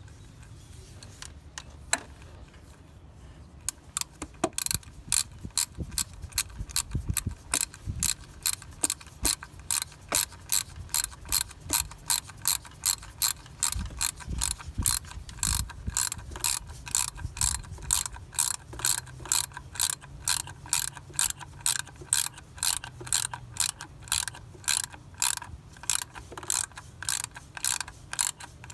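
Hand ratchet clicking as it drives the fastener of a new cam position sensor on a Chrysler 2.7 L V6. After a few scattered clicks, it settles about four seconds in into a steady run of sharp clicks, roughly two a second.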